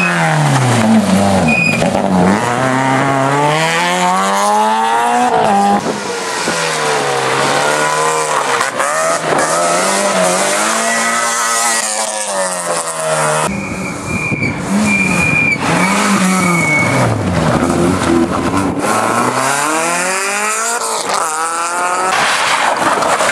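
Rally cars driven hard on a tarmac stage, engines revving up and dropping again and again with the gear changes, one car after another. Short high squeals come through, most clearly a little after the middle.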